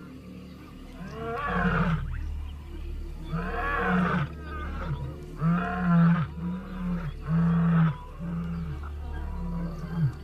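Lion roaring a territorial roar. Two long, full roars are followed by a run of shorter grunting calls, about one a second.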